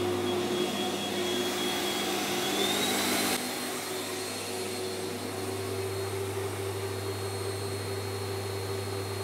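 Vacuum cleaner running steadily on its lowest power setting, over a steady low hum. Its high whine rises slightly in pitch, then about three seconds in the sound becomes a little quieter and duller.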